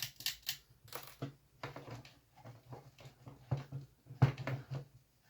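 Paper clip scraping and clicking inside a clock's battery compartment in short, irregular strokes, picking out corrosion debris from the corners; one sharper click about four seconds in.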